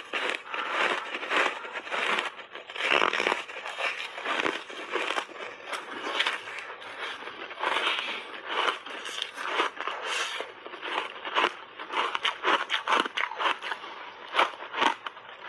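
Close-miked chewing of crunchy foam ice coated in matcha powder: a dense, irregular run of sharp crackling crunches as big bites of the frozen ice are broken up in the mouth.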